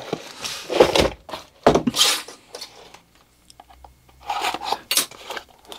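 Packaging rustling and parts being handled, in short irregular bursts with a brief lull midway.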